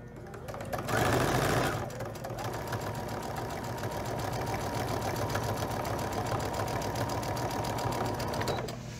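Domestic electric sewing machine running steadily as it stitches a seam through two layers of cotton, with a rapid even needle rhythm. It is louder for a moment about a second in and stops shortly before the end.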